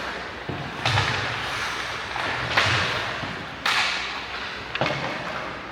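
Hockey sticks and puck striking during ice hockey play: four sharp cracks a second or so apart, each ringing on in the rink's echo, over steady arena background noise.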